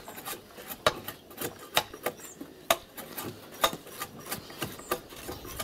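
Hand tools knocking and scraping on wooden poles as bark is stripped from them to make piles: a run of sharp knocks, the loudest about once a second, over a low scraping.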